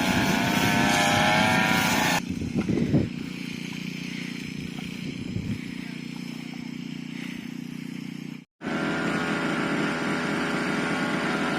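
Push lawn mower's small petrol engine running, its pitch wavering. About two seconds in the sound changes abruptly to a duller low hum. It cuts out briefly near the end, then the engine sound returns.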